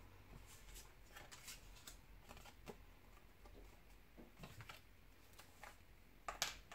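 Faint rustling and light taps of cardstock pieces being handled and laid down on a cutting mat, with a sharper click near the end.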